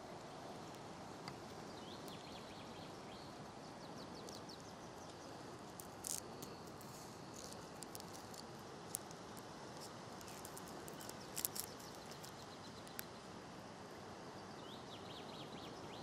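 Quiet outdoor ambience: a steady hiss, with faint runs of rapid high ticking near the start and again near the end, and a handful of sharp clicks in the middle.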